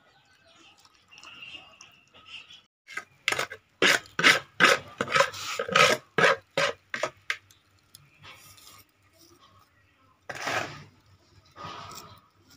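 A quick run of about a dozen rough, rasping scrapes over some four seconds, then two more scrapes near the end, from handling the fish and utensils while preparing it for grilling.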